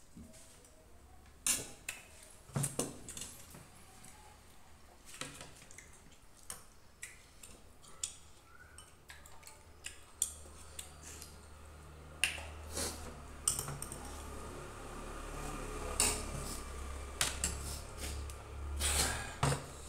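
A metal spoon and dishes clinking and scraping on plates as two people eat, in scattered knocks and clicks. A low hum comes in about halfway through.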